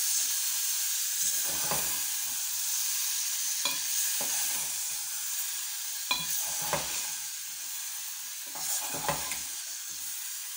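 Chopped tomatoes and spices sizzling in hot oil in a metal pot while a steel spoon stirs them. The spoon scrapes and knocks against the pot a few times over the steady frying hiss, which eases slightly toward the end.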